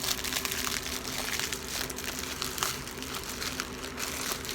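Packaging crinkling and rustling as it is handled, with scattered small clicks.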